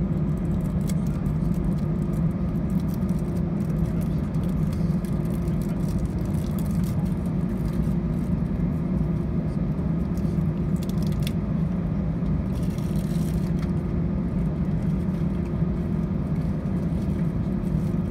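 Airbus A320 cabin noise while taxiing: a steady low engine hum and rumble heard through the cabin by the wing, with a steady tone running through it.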